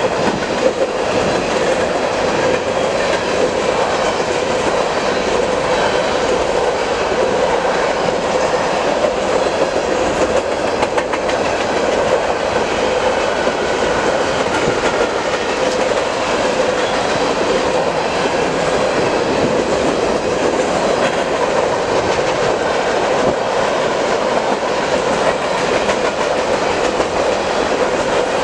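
CN manifest freight train's covered hopper cars rolling past, a loud, steady noise of wheels on rail.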